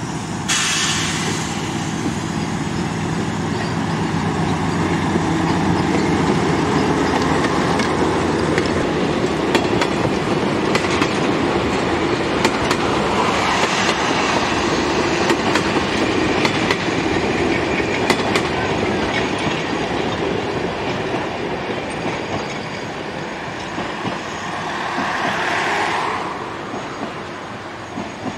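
Narrow-gauge diesel locomotive running past with a train of coaches: a steady engine drone, with the wheels clicking over the rail joints. A minibus passes close by on the road about halfway through.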